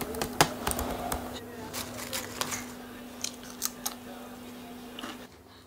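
Sharp crunches and clicks of potato chips being eaten, mixed with taps on a laptop keyboard, over a steady low hum that cuts off near the end.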